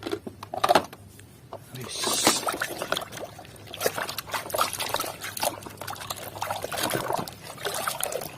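Water pouring and trickling over a plastic toy as it is rinsed of mud, starting about two seconds in with many small splashes.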